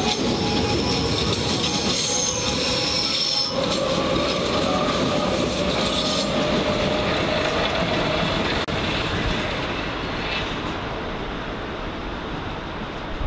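Hamburg S-Bahn electric train pulling away past the platform: a whine rising slowly in pitch over wheel-on-rail noise, with high wheel squeal in the first few seconds, fading as the train draws away.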